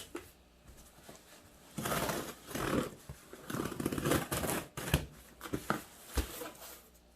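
A cardboard shipping box being handled and opened: two stretches of scraping and rustling, with a few sharp knocks near the end.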